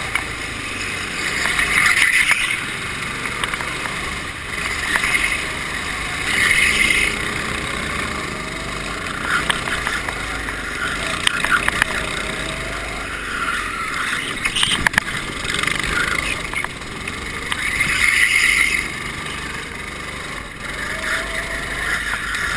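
Go-kart engine running as the kart is driven around the track, heard from onboard; the sound swells in short surges every few seconds.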